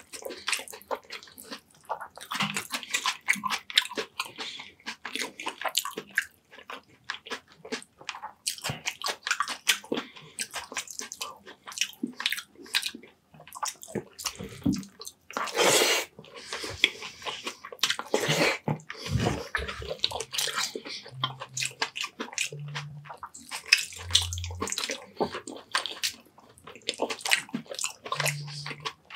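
Close-miked wet chewing and lip-smacking of a mouthful of baked fish and rice, many quick smacks and clicks, with one longer, louder wet sound about sixteen seconds in.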